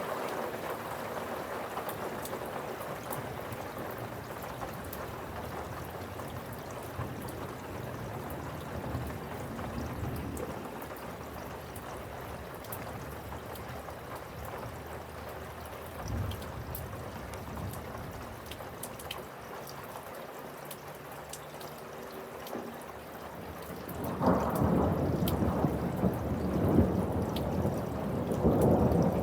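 Steady rain with many drops ticking sharply on a nearby surface. About two-thirds of the way in there is a brief low rumble, and near the end a louder, longer roll of thunder rumbles over the rain.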